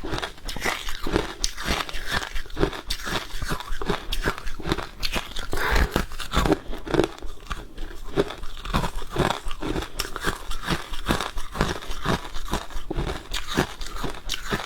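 Close-up crunching of freezer frost ice being bitten and chewed, with dense irregular crunches several times a second.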